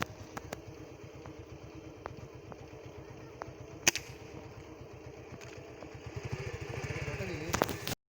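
A small engine running with a steady, rapid throb that grows louder near the end, with a few sharp clicks and one loud crack about four seconds in. The sound cuts off abruptly just before the end.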